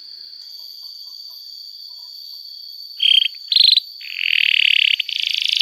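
Domestic canary singing. A thin, steady high note is held for about three seconds, followed by two short buzzy notes and then a louder rolling, rattling trill.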